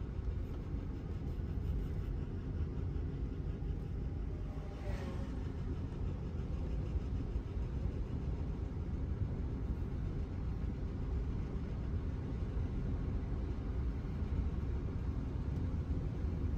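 Motorcycle on the move: a steady low rumble of engine and wind noise at an even speed, with a faint short falling tone about five seconds in.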